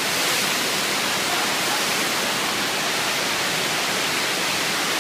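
Steady, even rush of water on a FlowRider surf simulator: the pumped sheet of water pouring over the ride surface and breaking into whitewater.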